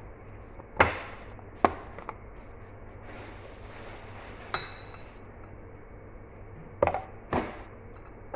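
Metal spoon clinking against glass cups while spooning chocolate cake crumbs: about five sharp, separate clinks, one ringing briefly about halfway through.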